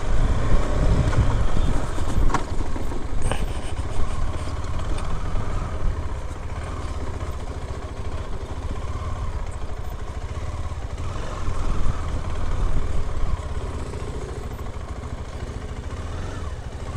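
Motorcycle engine running at low speed while the bike rides over a rough grass and mud trail, with a couple of short knocks in the first few seconds.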